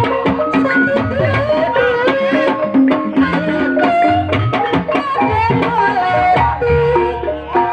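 Ebeg accompaniment music of Javanese gamelan and kendang hand drums, playing a steady beat under a melody that bends in pitch.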